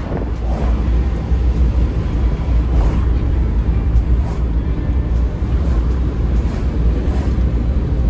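Steady low rumble of engine and road noise inside the cabin of a moving Suzuki Every kei van.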